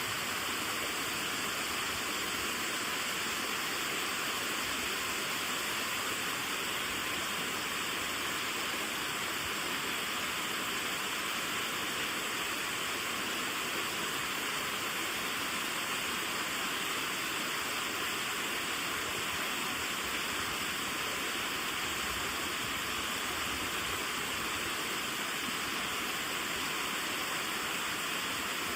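Waterfall water pouring and splashing in a steady, unbroken rush.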